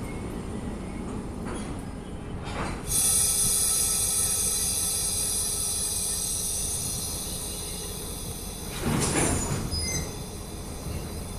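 Freight train cars rolling with a low rumble, then a sudden high-pitched, multi-toned wheel squeal starting about three seconds in and fading slowly over several seconds, followed by a brief rush of noise near the end.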